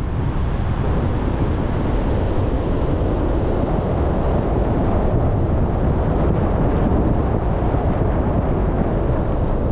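Steady noise of a car being driven: tyre noise on the road and wind, over a low rumble.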